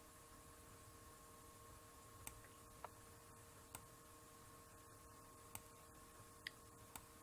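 Near silence with a faint steady hum, broken from about two seconds in by half a dozen faint computer mouse clicks at uneven spacing.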